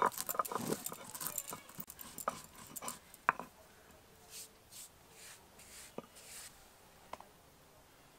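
A stone roller crushing and grinding dry-roasted whole spices on a grooved stone grinding slab (shil-nora), in a rapid run of gritty clicks and scrapes. The grinding eases after about three seconds into a few soft swishes and a couple of light knocks of stone on stone as the spices are reduced to powder.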